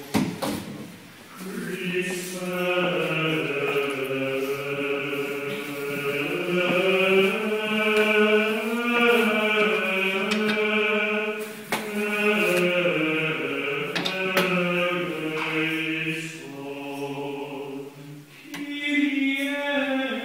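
Sung Latin liturgical chant of the Mass, in long sustained phrases. It breaks off briefly near the end and then starts again.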